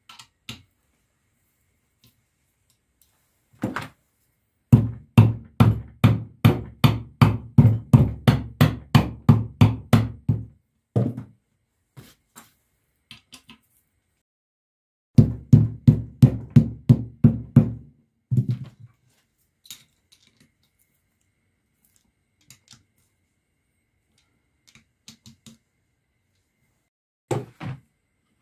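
Fast run of dull knocks, about three or four a second, on the end cover of a reassembled electric motor, repeated after a pause, with a few scattered taps around them.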